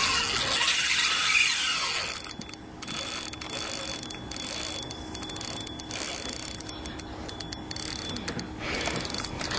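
Fishing reel's drag ratcheting as a big jack strips line off it. A loud steady rush fills about the first two seconds, then the drag's rapid clicking comes in uneven runs.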